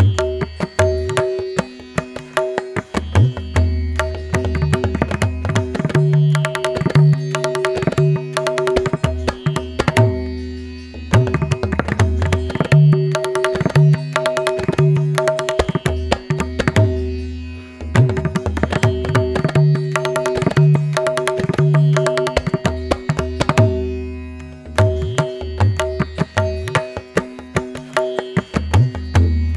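Background music: a busy drum rhythm over steady held notes and a low bass pulse.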